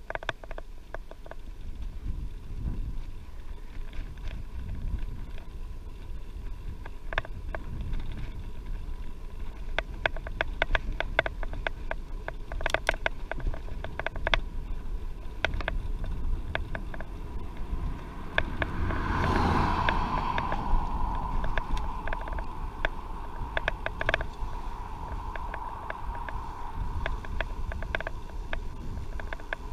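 Wind noise buffeting the microphone of a camera carried on a moving bicycle, with frequent sharp clicks and rattles. About nineteen seconds in, a louder noisy swell leaves a steady higher hum that slowly fades.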